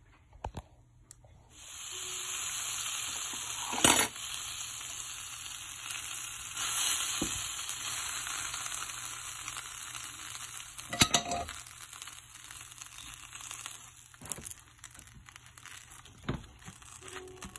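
Bread slices sizzling in oil on a ridged grill pan. The sizzle starts about two seconds in and slowly fades, with several sharp clicks and knocks as silicone-tipped tongs touch the pan and turn the bread.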